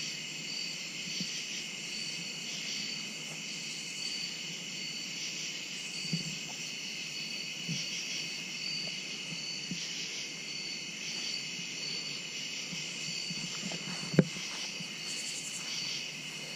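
Night insect chorus of crickets trilling steadily, with a regular pulsing high chirp over it. A few soft low thumps and one sharp knock about 14 seconds in.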